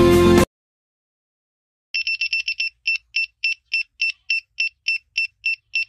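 Background music cuts off about half a second in. From about two seconds in, the earthquake alarm model's small buzzer beeps in short high-pitched pulses, a quick cluster at first and then a steady run of about four beeps a second: the alarm tripped, sounding as the hanging wire touches the hook and closes the circuit.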